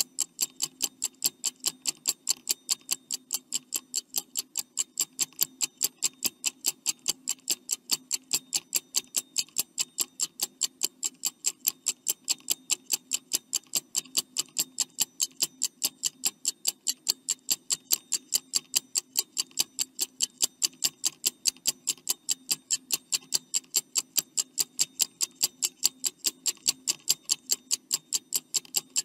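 Stopwatch ticking sound effect counting down the answer time: sharp, evenly spaced clicks, several a second, with a faint low hum beneath.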